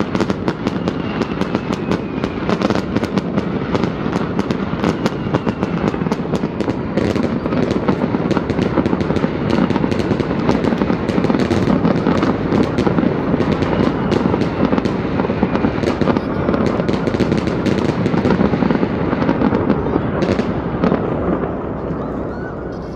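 Fireworks display: a dense, continuous barrage of bangs and crackling that eases off near the end.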